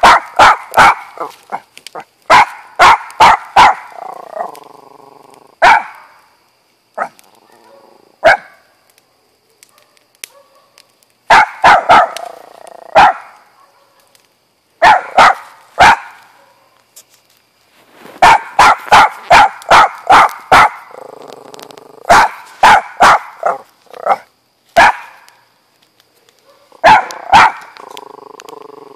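Small dog barking repeatedly in quick runs of three to seven sharp barks, with pauses and a few single barks between the runs.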